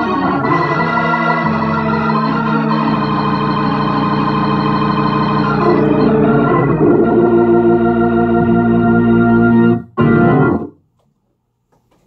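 Hammond organ played through a refurbished Leslie 147 amplifier: held chords over a steady bass, then a short break and one final chord that cuts off about ten and a half seconds in. The amplifier sounds good.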